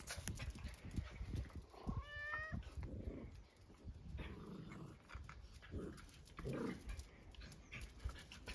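A puppy and a cat play-fighting: soft, irregular scuffling throughout, with one short high-pitched cry about two seconds in.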